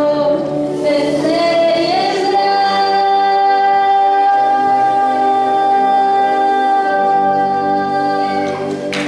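A young girl singing solo into a handheld microphone. About a second in, her voice rises into one long held note that lasts some six seconds and stops near the end.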